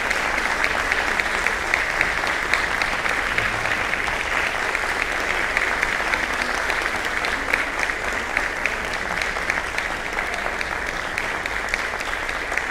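Audience applauding: dense, steady clapping from many hands that eases off slightly near the end.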